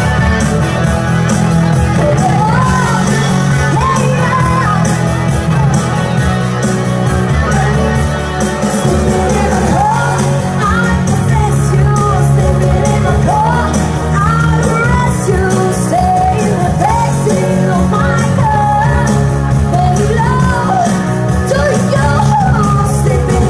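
A young woman singing a pop-rock song live into a microphone over loud backing music with a steady beat, amplified through stage speakers.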